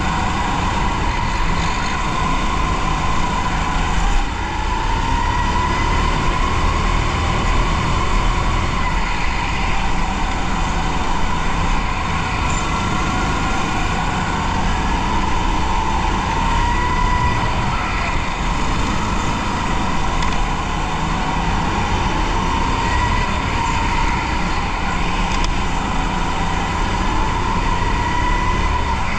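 Go-kart running at racing speed, heard from onboard: a steady whine whose pitch rises and falls as the kart speeds up on the straights and slows for the corners, over a constant low rumble.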